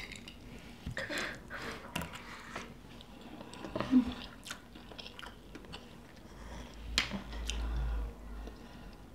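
Two people eating soft white rice with metal spoons from ceramic plates: close chewing and mouth sounds, with short clicks of spoons on the plates now and then. A low rumble runs for about two seconds past the middle.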